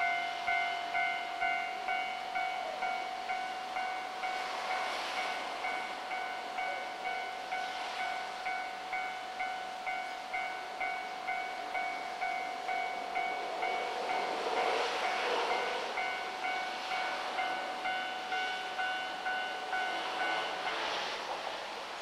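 Electronic level-crossing warning bell ringing steadily at about two strokes a second, stopping abruptly near the end. Under it a JR DD51 diesel-hydraulic locomotive approaches hauling passenger coaches, its engine and running noise swelling as it nears.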